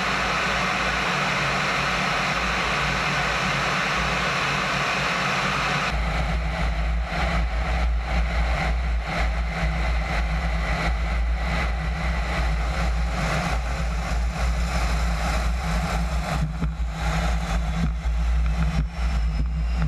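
Wind rush and jet engine noise picked up by a camera under a Su-33 fighter's wing in low flight and landing: a steady hiss, changing abruptly about six seconds in to a heavy low rumble with constant buffeting on the microphone, with faint sliding whines near the end.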